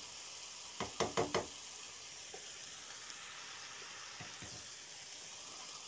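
Metal spoon stirring carrot halwa in a steel pan, with a quick run of scrapes and knocks against the pan about a second in and a couple of single taps later. Under it, a faint steady sizzle as the freshly added ghee melts into the hot halwa.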